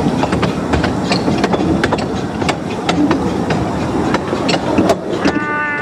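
Wheels of a 15-inch gauge railway carriage clicking irregularly over rail joints and pointwork as the train rolls along at low speed, over a steady running rumble. A brief steady high tone sounds near the end.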